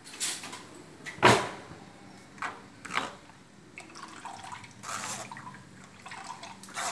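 Coconut milk trickling from a steel mesh strainer into a ceramic bowl while a spoon presses ground coconut paste through the mesh. A sharp knock about a second in, likely metal on metal, and several softer scrapes and clinks of the spoon against the strainer.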